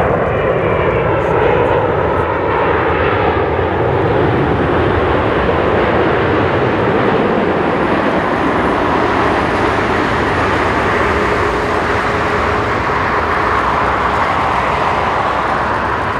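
Jet engines of a Boeing 787-9 airliner on landing approach: a loud, steady rush of jet noise with a faint whine that falls in pitch over the first few seconds as the aircraft passes close by.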